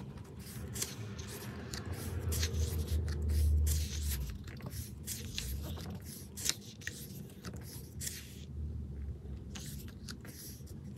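Glossy pages of a photobook being turned and handled, with many short paper rustles and scrapes. A low rumble of handling swells about two seconds in and fades by about four and a half seconds.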